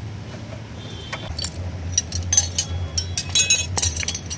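Metal tools clinking against a motorcycle's rear wheel and chain hardware, a quick irregular run of sharp ringing clinks that starts about a second in. There is a low steady hum underneath.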